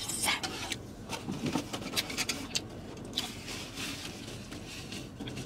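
Eating sounds of someone chewing chicken wings: irregular soft clicks and rustles, with a paper napkin being handled.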